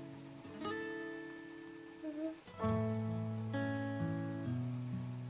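Background music: acoustic guitar chords ringing out and fading, with new chords struck about a second in and again near the middle.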